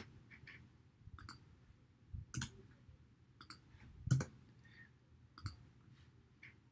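Computer mouse clicks and keyboard keystrokes: a dozen or so short, irregular clicks, the loudest about four seconds in.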